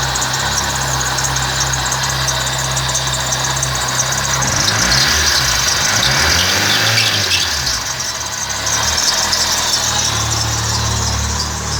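Fiat Palio's Fiasa four-cylinder engine running with a loud noise that sounds like belt noise but comes from a worn alternator bearing. About halfway through, the engine speed rises and falls back.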